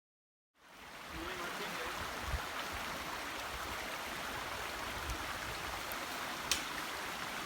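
Mountain stream flowing steadily, cutting in about half a second in, with a couple of dull knocks and a sharp click near the end.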